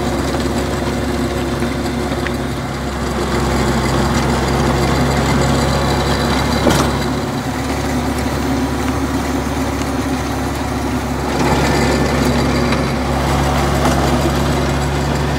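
Compact tractor's engine running at a steady pitch under load, driving a rear-mounted rotary tiller that churns through the garden soil. One brief sharp click comes about halfway through.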